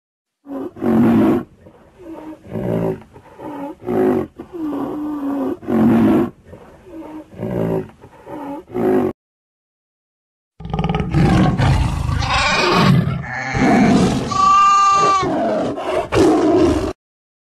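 Animal sound effects: a run of about ten short calls, roughly one a second. After a brief gap comes a louder, continuous stretch of animal roaring and growling that stops suddenly near the end.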